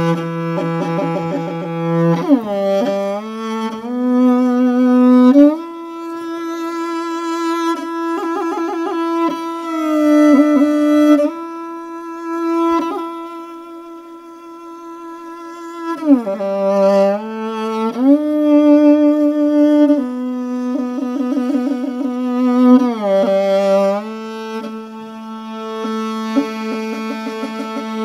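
Morin khuur (Mongolian horsehead fiddle) bowed in a slow melody of long held notes, joined by sliding changes of pitch.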